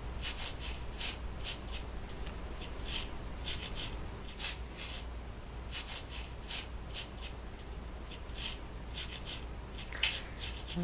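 Scrubbing strokes of cleaning, short and irregular, about two or three a second, with a sharper knock near the end. A steady low electrical hum runs underneath.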